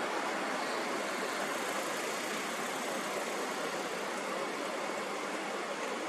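Steady, unchanging noise with no rhythm or breaks, its energy spread evenly from the mids up through the highs, as in a sleep-sound noise track.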